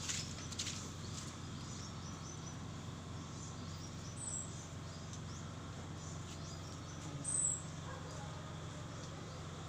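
Steady outdoor background noise with a little rustling at the start and two short, high bird chirps, about four and seven seconds in.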